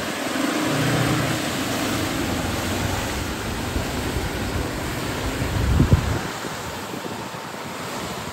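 Ford Endeavour SUV's engine running under load as its tyres churn through deep wet mud, with a steady wash of splashing and spraying mud. About six seconds in there is a louder burst, and then the engine sound falls away.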